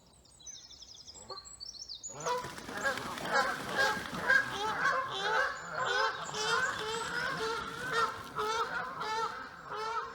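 A few faint high songbird trills, then about two seconds in a large flock of waterfowl, most likely geese, breaks into a loud, dense chorus of overlapping honking calls that keeps going.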